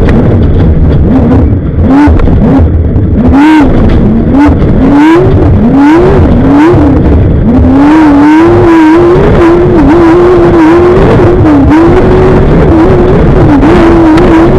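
Off-road race vehicle's engine at racing speed. For the first half it surges up and falls back about every two-thirds of a second, then it holds high and nearly steady with small dips, over constant rushing and rattling noise.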